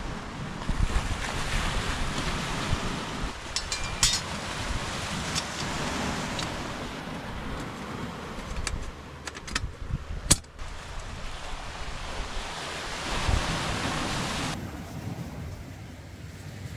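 Sea waves washing onto the shore, swelling and ebbing every few seconds, with wind on the microphone. A few sharp clicks are heard about four seconds in and again around nine to ten seconds in.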